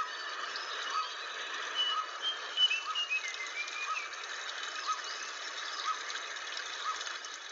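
Blue flycatcher song: short whistled phrases that glide up and down, with a short note repeated about once a second beneath them.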